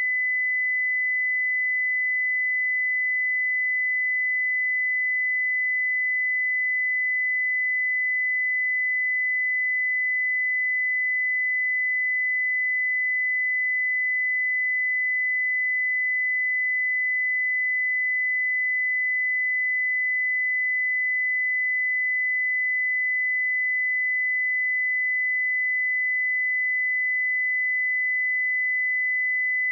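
A steady 2007 Hz sine-wave test tone: one pure high-pitched note held at a constant level, used to check speakers and headphones.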